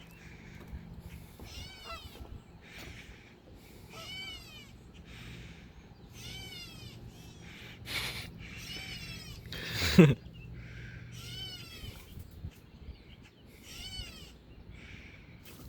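A bird calling over and over, one short call roughly every two seconds. About ten seconds in there is one sharp, louder sound that falls in pitch.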